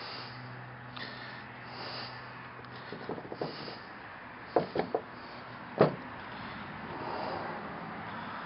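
Handling noises: a few short taps and knocks, with a quick cluster of three a little before the middle and a single sharper knock about six seconds in, over a steady faint hum.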